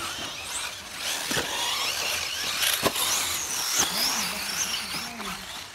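Electric off-road RC buggies racing, their motors whining and rising and falling in pitch as they speed up and slow down, with a couple of sharp knocks.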